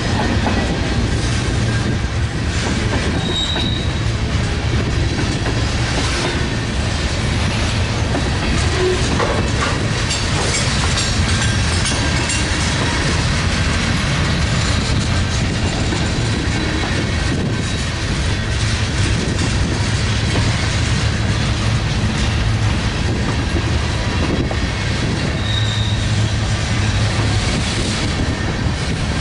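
Freight train cars rolling past with a steady, loud rumble and clatter of wheels on rail. Two short, high wheel squeals come through, a few seconds in and again near the end.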